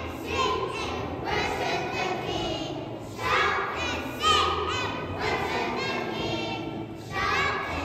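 A choir of young children singing together in phrases, with short breaths between phrases about three seconds in and near the end.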